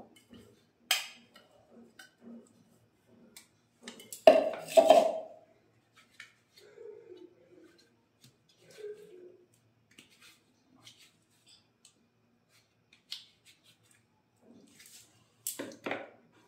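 Stainless-steel utensils clinking and knocking against a steel mixing bowl as spice paste is tapped and scraped out into it. There are scattered clinks, a loud clatter about four seconds in, and another just before the end.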